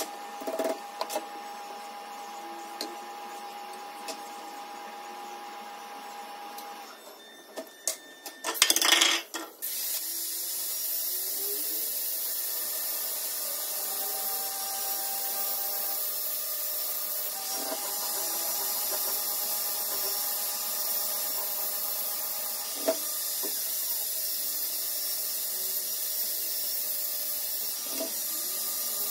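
Hand-tool work on an electric blower motor's aluminium housing during reassembly: scattered clicks and scrapes, with a loud cluster of knocks about eight seconds in. After that, a steady hiss runs under the work, with a few faint clicks.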